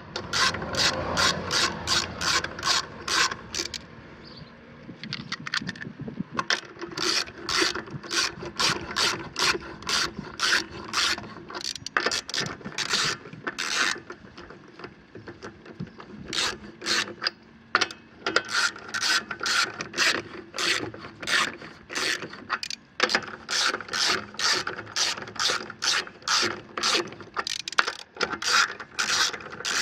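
Hand ratchet wrench clicking in long runs of regular clicks as lug nuts are run down onto a car wheel's studs, with short pauses between runs.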